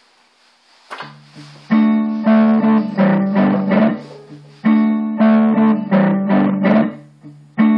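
Electric guitar played clean, picking a melodic riff. A few notes sound about a second in, then a phrase starts just under two seconds in and comes round again about every three seconds.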